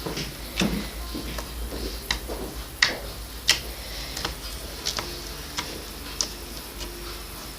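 Slime being squeezed and worked, giving irregular sharp clicks and small pops, about one or two a second.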